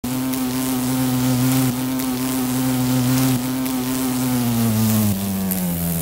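Carpenter bee (Xylocopa) buzzing steadily, a rich buzz with many overtones. From a little after four seconds in, the buzz is digitally pitched down and its tone slides steadily lower.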